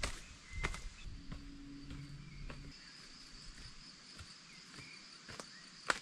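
Footsteps of someone walking along a trail, coming every half second or so at first, then fewer. A steady high insect trill sets in about three seconds in.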